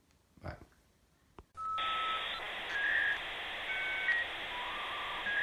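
Electronic outro jingle: a run of beeping tones that step up and down in pitch over a steady hiss, starting about one and a half seconds in. Just before it there is a brief voice sound and a click.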